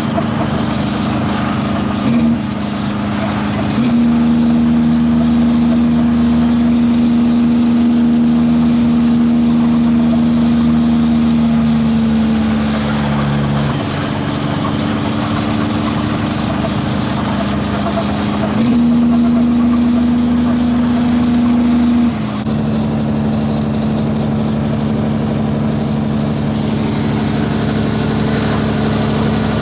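Heavy truck engine running with a steady drone that jumps up and down in pitch several times.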